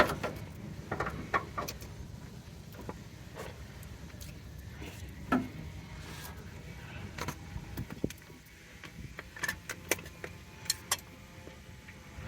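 A hand grease gun being worked on a grease fitting, making scattered, irregular metallic clicks and clinks. The loudest come right at the start, a little after a second in, about five seconds in, and near the end.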